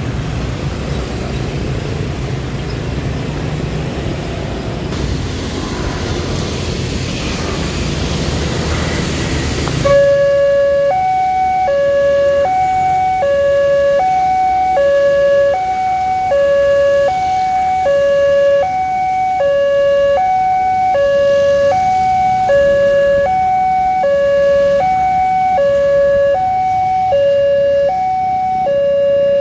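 Road vehicle noise for about the first ten seconds. It then changes abruptly to a railway level crossing's electronic warning signal: a steady two-tone chime whose low and high notes alternate, about one low-high cycle a second.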